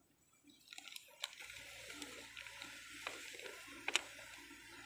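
Faint background hiss that comes in under a second in, joined by a low hum, with a few soft clicks around the middle and once near the end.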